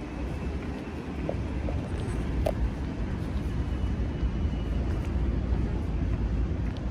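Steady low outdoor rumble with no clear single source, growing a little louder about a second in, with a few faint ticks.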